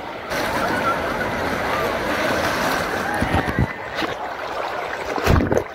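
Rushing, splashing water at a water park, with distant voices mixed in and a few dull thumps near the end.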